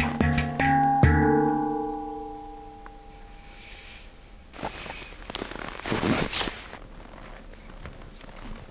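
Hang (steel handpan) being struck by hand: a few quick notes, the last about a second in, then ringing out and fading away over the next two seconds or so. Later come a few soft rustling, scraping noises, loudest around six seconds in.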